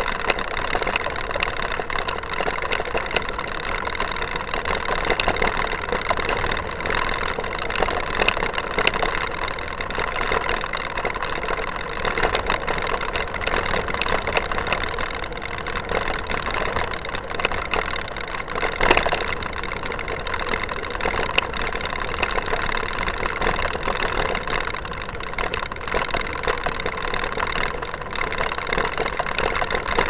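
Continuous rattle and tyre rumble of a mountain bike rolling over a dirt trail, with many small knocks from bumps and a sharper knock about nineteen seconds in.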